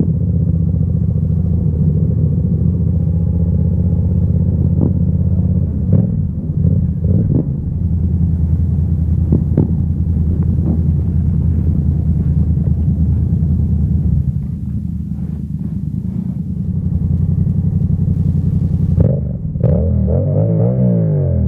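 Yamaha MT-07 parallel-twin engine heard from the rider's seat, running steadily at low road speed. Near the end the engine note drops and shifts as the bike slows to a stop.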